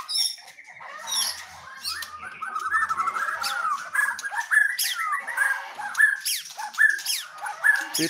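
White-rumped shama (murai batu) singing a fast, varied song of chirps, trills and sweeping whistled notes, rich in canary-like trilling phrases.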